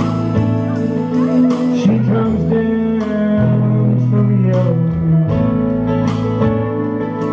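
Live country band playing: strummed acoustic guitar with fiddle and electric guitar, and a man singing.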